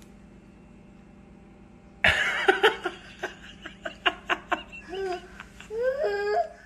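Quiet room tone for about two seconds, then people off-camera suddenly break into loud, hard laughter in quick choppy bursts. Near the end the laughter turns into high, wavering cries.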